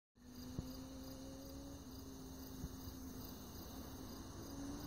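Crickets singing steadily in high, evenly repeating pulses. Underneath is a faint low drone that rises slightly in pitch near the end.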